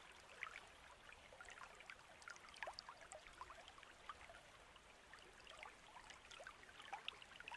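Near silence: room tone with faint, scattered small ticks and crackles.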